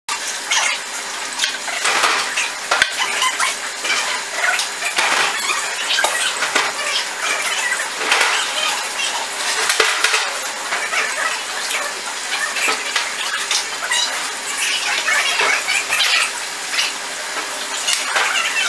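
Aquarium water sloshing and splashing as hands pull plants and stones out of a partly drained tank, in irregular bursts, with a few sharp clinks of stone against glass.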